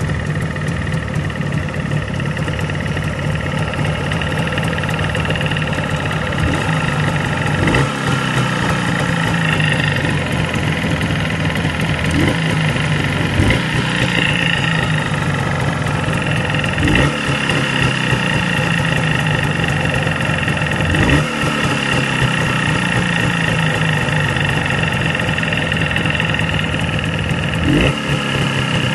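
Jawa 638 two-stroke twin engine running, with several short sharp spikes over it. It carries a foreign ringing, trill-like noise that appeared in the piston and cylinder group, which the mechanics place in the right cylinder and have yet to diagnose.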